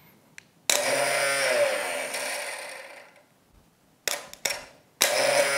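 Used motorcycle/ATV starter motor with bendix drive, bench-run from a battery through jumper cables: it starts suddenly and whirs about a second in, then winds down with falling pitch once the cable is lifted. Two quick blips follow, then it starts again near the end.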